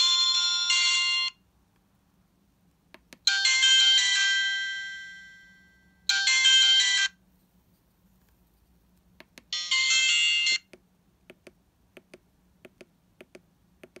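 Alcatel 1066 feature phone previewing its built-in MIDI alarm tones through its small speaker: four short snatches of high-pitched electronic melody, each stopped abruptly as the selection moves on, one ending in a long chime note that fades away. Soft keypad clicks come between the tones and in a quick run near the end.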